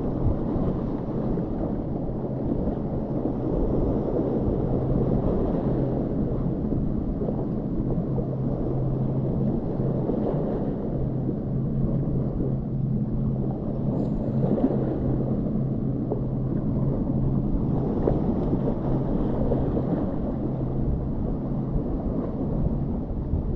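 Steady rushing water noise with a constant low hum underneath.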